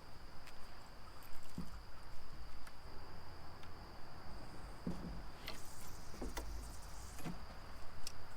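Steady high-pitched chirring of night insects, such as crickets, with scattered light clicks and knocks.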